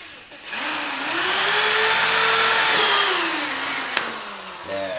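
Corded electric drill spinning up to speed, running steadily for about two seconds, then winding down as the trigger is released, with a sharp click near the end.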